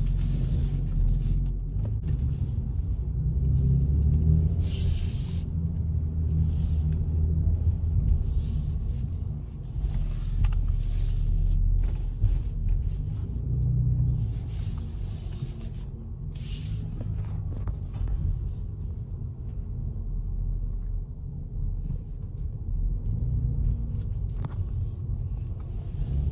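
BMW X4 M Competition's twin-turbo straight-six running with a deep, steady rumble that swells and eases slightly, broken by short bursts of hiss.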